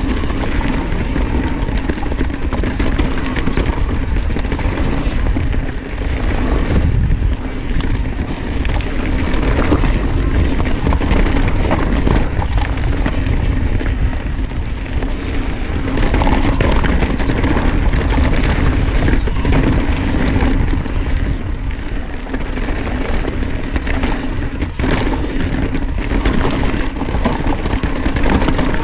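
Santa Cruz Hightower LT mountain bike riding down dirt singletrack: steady tyre roll and drivetrain noise with frequent small knocks and rattles from the bike over roots and bumps, and wind buffeting the microphone.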